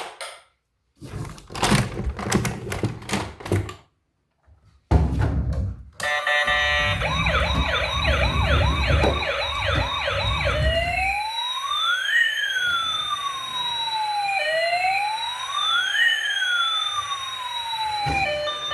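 Clicks and rattles, then a short low rumble, then a toy emergency vehicle's electronic siren. The siren begins as a fast yelp of short rising sweeps, two or three a second, and after about four seconds switches to a slow wail that rises and falls about every four seconds.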